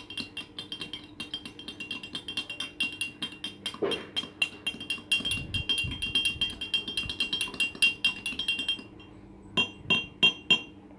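A spoon stirring quickly in a glass, clinking against the sides several times a second with a light glassy ring. Near the end it gives about four louder taps.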